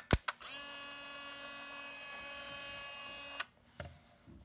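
The Olympus Trip AF 51's built-in electric motor running. A couple of sharp clicks are followed by a steady whine for about three seconds that stops suddenly, and then a few small clicks.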